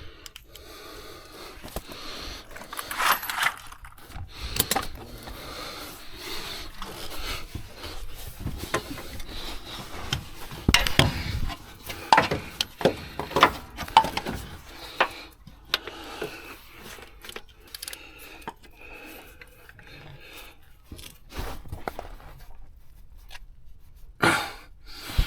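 Irregular clinks, knocks and scraping of hand tools and parts being handled around a car's engine bay, with no engine running.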